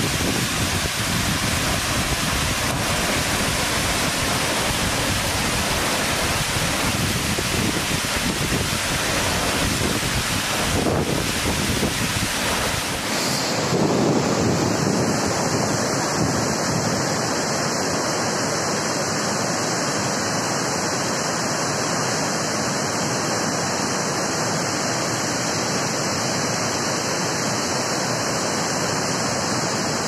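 Steady rush of falling water: a waterfall pouring over rocks, then, after a cut partway through, floodwater pouring over a dam spillway.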